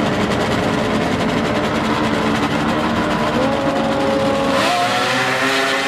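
Racing snowmobile engine running, a dense rough engine noise at first. From about three seconds in, a clear engine note climbs in pitch as the sled revs up.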